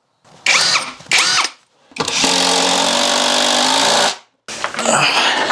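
Cordless drill pre-drilling pilot holes through a wooden cleat into the wall studs. It gives two short trigger pulses, then runs steadily for about two seconds while boring, followed by a short rough noise near the end.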